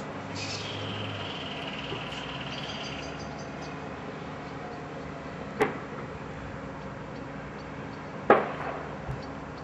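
Steady distant city hum, likely traffic, with a high steady tone in the first few seconds. Two sharp knocks, about halfway through and near the end, stand out as the loudest sounds.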